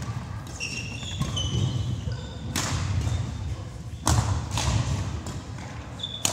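Court shoes squeaking briefly on a wooden sports-hall floor and footsteps thudding as badminton players walk back into position, with a couple of sharp knocks that echo in the hall.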